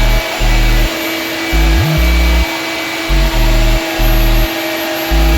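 Drywall sanding machine running steadily, its motor and dust vacuum giving a constant hiss and hum. Loud bass-heavy background music with on-and-off low notes plays over it.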